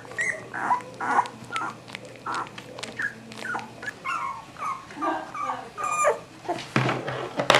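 Three-week-old Cavalier King Charles Spaniel puppies whimpering: a quick run of short, high squeaks, two or three a second. Near the end there is a louder, noisier rustle.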